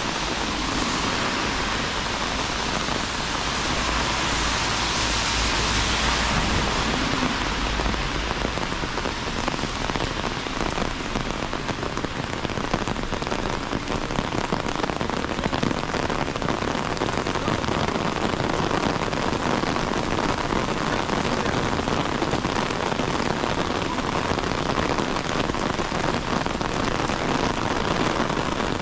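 Heavy rain pouring down steadily, a dense, even patter of drops. A low rumble sits under it for the first several seconds, then fades.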